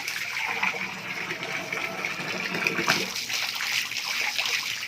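Water pouring steadily from a hose into a turtle pond.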